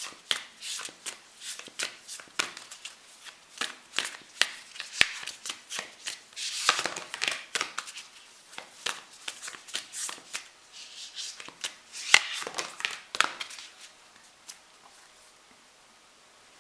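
A deck of spirit animal oracle cards being shuffled by hand: a quick, dense run of card clicks and rustles that stops a few seconds before the end.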